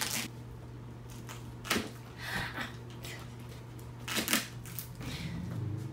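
Tape-wrapped box being cut and picked open by hand: scattered scratches, clicks and short tearing rustles of tape and wrapping, the loudest a little after four seconds in, over a steady low hum.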